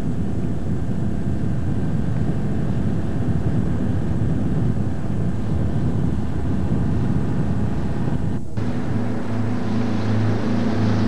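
Boat engine running steadily under way, with wind and water noise on the microphone. The sound breaks off for an instant about eight and a half seconds in, and after that a steady low engine hum comes through more clearly.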